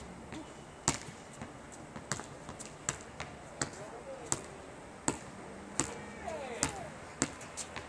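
A basketball bouncing on an outdoor asphalt court: a string of sharp, short thuds about every half second to second.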